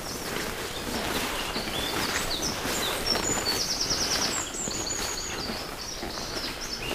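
Tall grass and weeds swishing and rustling as someone pushes through them on foot, with songbirds chirping throughout and a rapid trill about halfway through.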